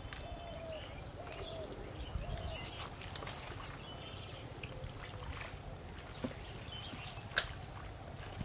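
Faint outdoor ambience over muddy ground: a low rumble, a few short chirping animal calls in the first second or so, and three sharp clicks, the loudest about seven seconds in.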